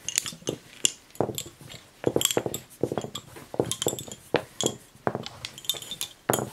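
Irregular light clicks and clinks of small hard objects tapping together, about three a second, each short with a brief high ring.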